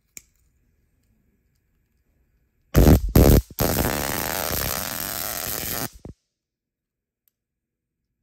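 Flashlight stun baton firing across its electrodes: a loud electric buzz in two short bursts, then held for about two and a half seconds, ending with one last brief burst. A single faint click comes near the start.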